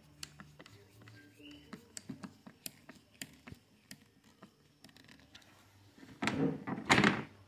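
Scattered light clicks and taps of tools on a stainless steel machine screw and nut as the nut is tightened through a machete handle. A louder, longer sound comes about six seconds in.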